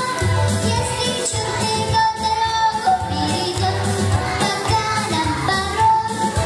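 A young girl singing into a microphone over instrumental accompaniment with a steady bass beat.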